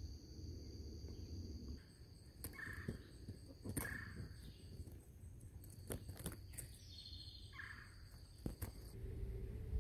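Faint outdoor ambience: a steady high-pitched insect drone, with several sharp clicks and a few short chirps.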